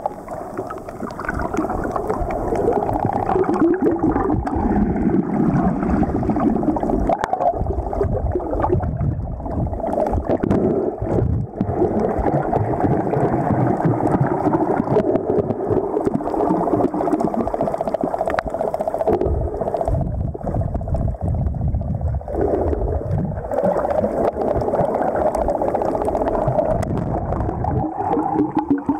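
Muffled, steady rushing and gurgling of water, heard with the camera underwater, with no distinct events.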